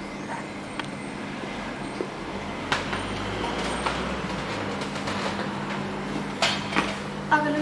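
Steady hum and hiss of a café bar's machinery, with a few light clinks of a china cup and saucer being handled, several of them near the end.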